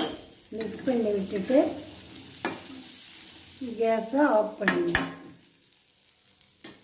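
A spoon stirring black chickpeas and grated coconut in an iron kadai: two stretches of scraping against the pan, with a few sharp knocks on the pan around the middle and about five seconds in, over a sizzle from the hot pan.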